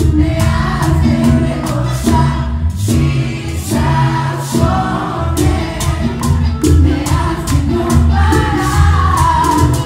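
Live bachata band, loud through the PA: men's voices singing together over a strong bass line and a steady percussion beat.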